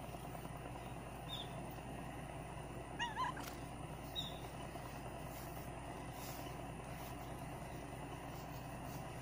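A calico cat's short, wavering meow about three seconds in, over a steady low background rumble.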